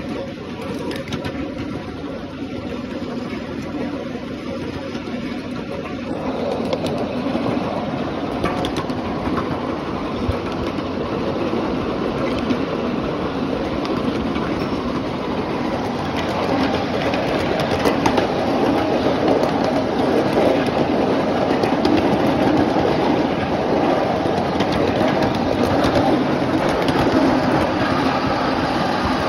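Miniature ride-on train cars rolling along small-gauge track, with a continuous rumble of wheels on rails that grows louder about halfway through.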